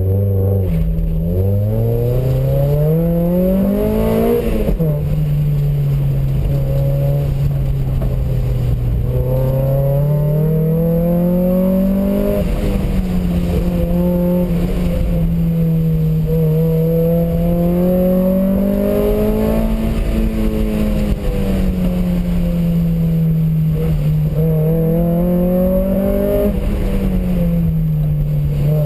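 Street-prepared autocross car's engine driven hard through a course, its pitch climbing under acceleration and sagging when braking over and over. It climbs steadily for the first four seconds, then drops sharply at an upshift.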